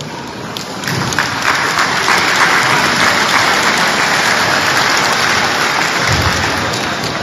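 Audience applauding: dense clapping that swells about a second in, holds, and eases off near the end.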